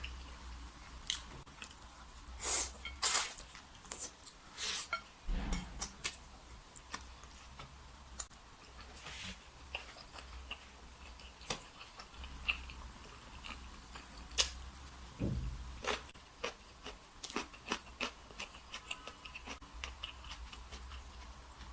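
Close-miked eating: a person chewing and biting food, with scattered wet mouth clicks and smacks. Several louder ones come in the first few seconds, and there are two low bumps, one near the start and one about two-thirds of the way through.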